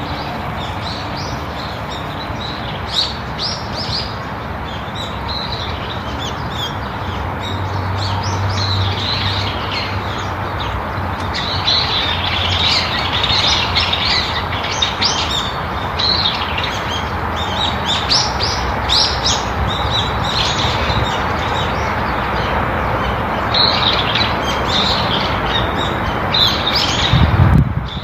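A chorus of small birds chirping and twittering, with many short, overlapping calls over a steady rushing background noise. A brief low thump comes near the end.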